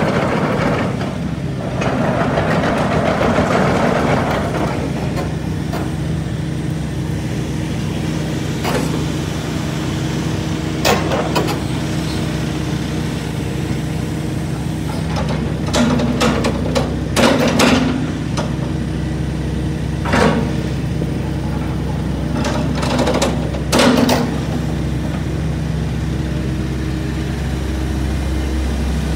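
Hitachi ZAXIS 130LCN tracked excavator's diesel engine running steadily while the arm, bucket and upper structure are worked. Several short sharp knocks come through, a cluster of them in the middle.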